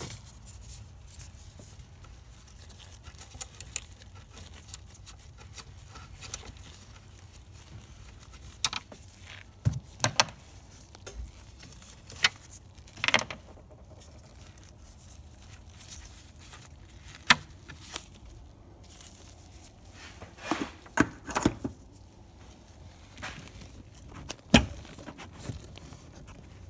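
Scattered sharp clicks and knocks of hands and tools handling plastic parts in an engine bay, over a low steady hum.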